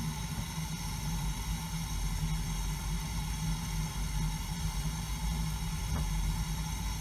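A steady low mechanical hum and rumble, like a vehicle engine running.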